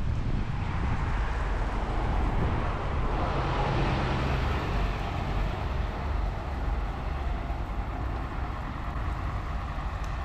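Street traffic: a passing vehicle swells to its loudest about four seconds in and then fades away, over a steady low rumble.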